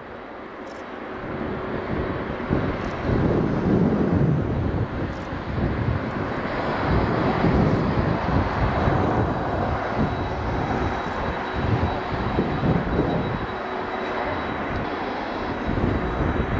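Boeing 777-300ER's GE90 jet engines running as it taxis, a steady rumble with a faint high whine that swells over the first few seconds and then holds.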